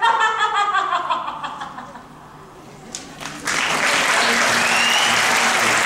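A woman's held vocal line trailing off and fading, then after a short lull and a click, audience applause breaks out about three and a half seconds in and carries on steadily.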